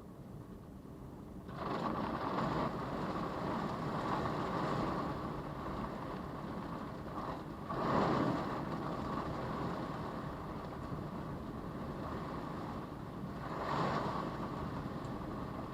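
Storm wind blowing hard against a parked car, picked up by its dash camera's microphone. It rises sharply about a second and a half in and swells in gusts twice later on.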